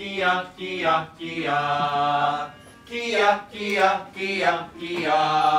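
A man's voice singing long held notes with short breaks between, several sliding downward at the end.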